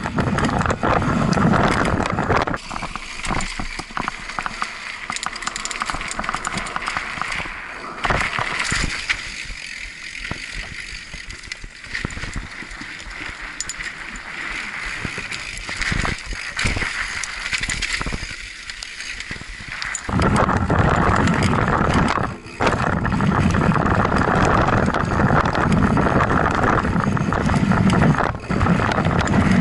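Mountain bike riding down a trail: tyre noise and the rattle of the bike, with scattered clicks and knocks. It is louder, with a low rumble, for the first couple of seconds and again from about two-thirds of the way through, and quieter in between.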